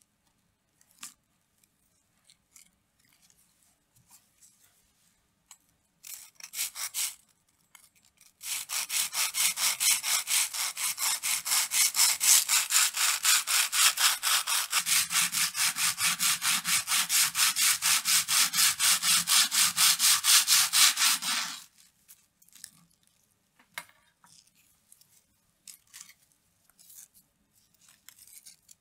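A knife sawing back and forth through a crisp waffle cone on a wooden board, a dry rasping crunch at several even strokes a second. The sawing lasts about thirteen seconds and stops abruptly, after a shorter burst of crunching a few seconds earlier.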